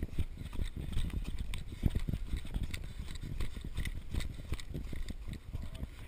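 Running footsteps thudding on a dirt forest trail, about three a second.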